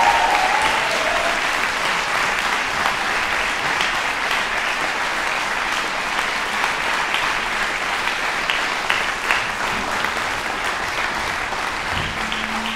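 Concert-hall audience applauding steadily, a dense patter of many hands clapping at once.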